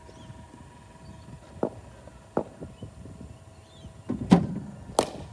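Cricket net practice: two light knocks, then a loud thump about four seconds in, followed a moment later by the sharp crack of a cricket bat hitting the ball.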